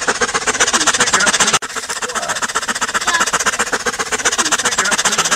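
A dog panting hard and fast in a rapid, raspy rhythm that sounds like a helicopter's rotor chop. It breaks off for a moment about a second and a half in, then carries on.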